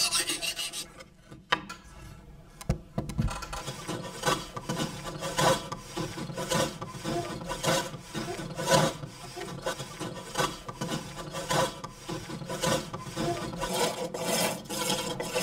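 Steel chisel scraping wood: a rasping scrape at the start, then, from about four seconds in, rhythmic cutting strokes about one and a half to two a second as the chisel bites into a wooden bowl blank turning on a foot-treadle pole lathe.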